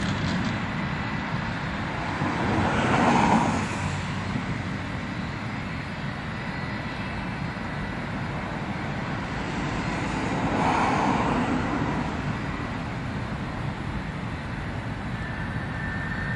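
Jet airliner engines running, a steady rumble with a thin high whine, swelling louder twice, about three seconds in and again about eleven seconds in.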